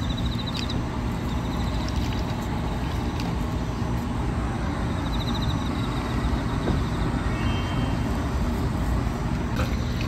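Steady low rumble of road traffic from a nearby highway, with a few short high trills over it.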